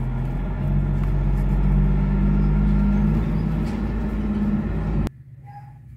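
Steady low rumble and hum of a running engine, which cuts off abruptly about five seconds in.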